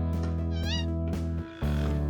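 Background music of sustained chords that change about a second and a half in, with a short, high, warbling chirp laid over it about half a second in.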